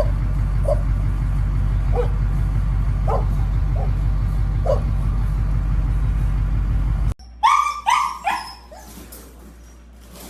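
A dog giving faint, short whimpering yelps over a steady low rumble. After a cut about seven seconds in, a dog barks three quick times.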